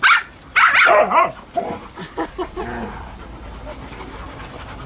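Dogs barking and yipping at play, with a loud run of pitched, wavering yips and barks about half a second in, then shorter yips that thin out before the second half.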